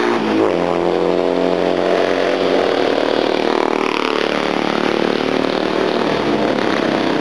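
Engine of a classic race vehicle running steadily at speed on the circuit, heard before it comes into view, its pitch wavering only slightly.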